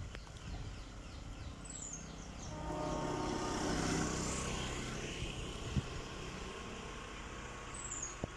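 Diesel-hauled ballast train running away into the distance: a low rumble with an engine drone that swells to its loudest around the middle and then eases. Birds chirp over it in the first couple of seconds, and there is one sharp knock a little after halfway.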